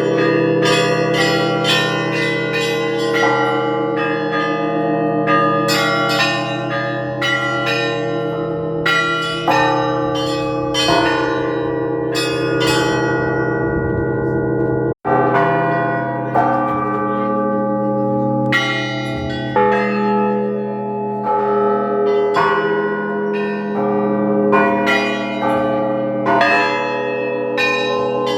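Orthodox cathedral bells being rung: quick repeated strikes on the smaller, higher bells over the sustained ringing of the larger bells. The sound cuts out for an instant about halfway through.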